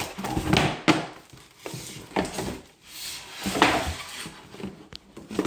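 Packing tape being cut on a cardboard box and the box handled: irregular scraping and rustling with a few sharp knocks.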